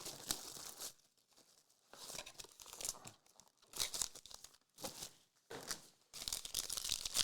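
Plastic wrapper of a trading card pack being torn open and crinkled, in five or so short bursts of crackling.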